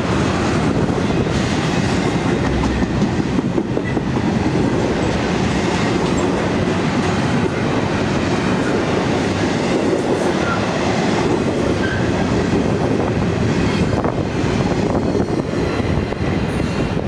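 Double-stack intermodal freight train's well cars rolling past, a steady loud rumble and clatter of steel wheels on the rails.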